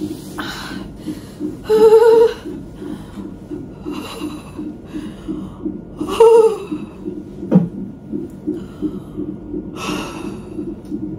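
A woman in labour breathing hard through a contraction, with two loud pitched moans about two and six seconds in. Under it runs a fast, steady pulsing from the fetal heart monitor, and a sharp knock comes about seven and a half seconds in.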